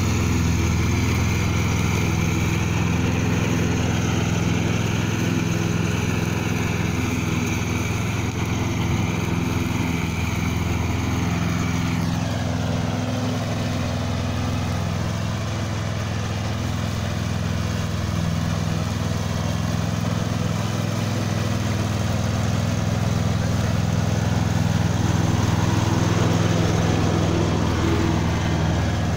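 Husqvarna TC 139 T ride-on lawn tractor's engine running steadily as it mows grass.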